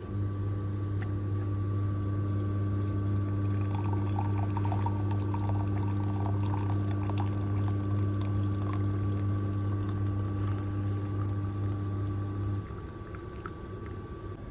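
Necta Kalea automatic drinks machine dispensing tea: a steady low machine hum starts at once and cuts off suddenly about twelve seconds in, with the drink pouring into the cup from about three and a half seconds in until about nine seconds.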